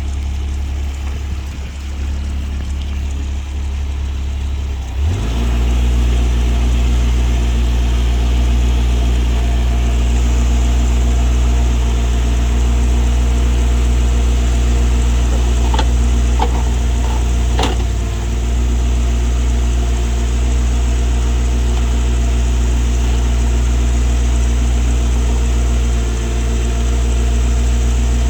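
CAT 301.7 mini excavator's diesel engine running steadily, then speeding up to a higher, steady pitch about five seconds in. A few sharp metallic clicks and one louder knock come a little past halfway through.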